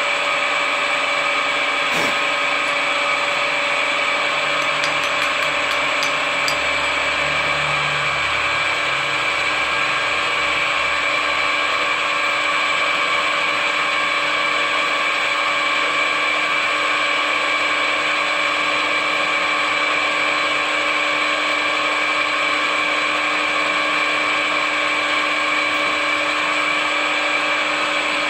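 Drill press running steadily, drilling into a bolt clamped in a machine vise, with a constant whine at several pitches. A single click comes about two seconds in.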